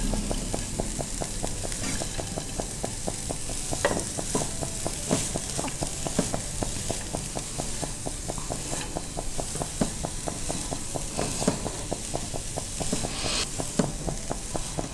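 A spatula stirring and tossing chopped radish leaves with moong dal and diced radish in a non-stick pan: a quick, irregular run of small scrapes and taps against the pan over a light sizzle.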